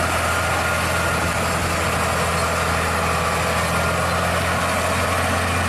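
Scania road-train truck's diesel engine running steadily under load: a constant low drone with road noise over it, and no change in pitch.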